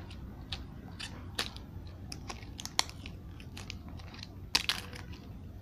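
Thin plastic protective film crinkling and crackling as it is peeled off a new mobile phone, with a few sharp clicks, the loudest about four and a half seconds in.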